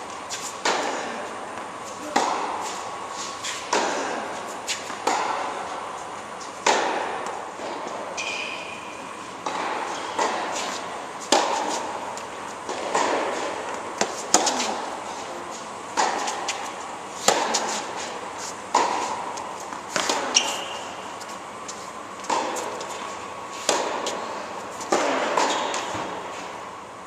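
Tennis ball struck by racket strings again and again in a rally, about one hit every second and a half, each ringing out in the echo of a large indoor tennis hall. Two short high squeaks come in between, once about eight seconds in and again about twenty seconds in.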